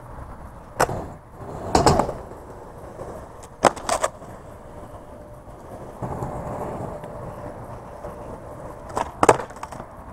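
Skateboard on a paved skatepark: wheels rolling, with several sharp clacks of the board striking the ground as the tail is popped and the board lands, including two close together near the end.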